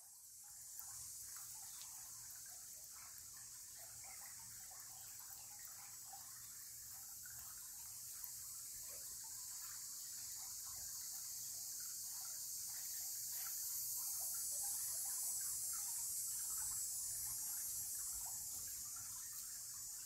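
Spring water trickling and burbling through a fieldstone channel, with a steady high hiss. It grows a little louder in the second half.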